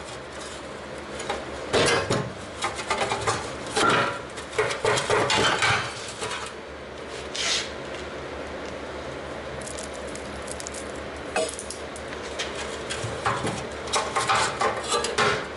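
Hand tools, a screwdriver among them, clinking, scraping and knocking against metal tailgate parts in irregular bursts, with a quieter spell about halfway through.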